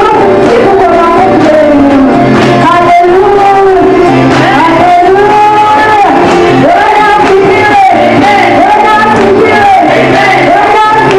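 Congregational worship singing: male and female voices singing together over loud amplified band music in a large hall.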